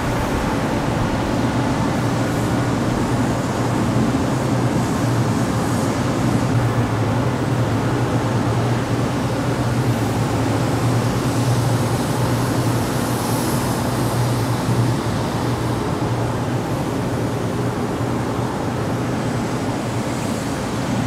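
Industrial exhaust fan running steadily: a constant rush of air over a low hum, with the hum easing off after about fifteen seconds.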